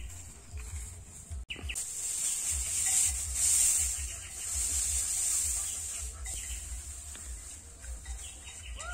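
Dry straw rustling and crackling as it is grabbed and gathered into an armful, with wind buffeting the microphone. A bird calls now and then in quick runs of short descending notes.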